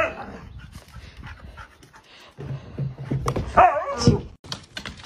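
A dog making short vocal sounds, one at the start and a louder one with a wavering pitch about three and a half seconds in, with panting between.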